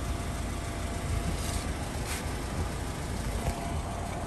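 Steady low hum of an idling car engine under outdoor background noise, with two brief hissy sounds about 1.5 and 2 seconds in.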